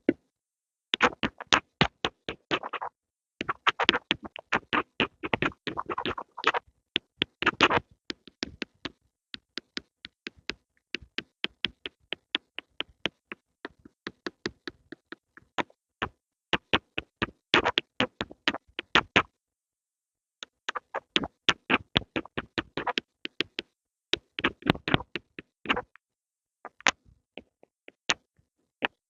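Pencil making rapid sharp taps and clicks, close up, in bursts with short pauses, including one silent gap of about a second around two-thirds of the way through.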